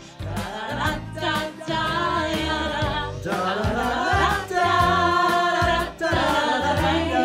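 A group of voices singing wordless 'da da dat da ya da' scat syllables together, with piano accompaniment.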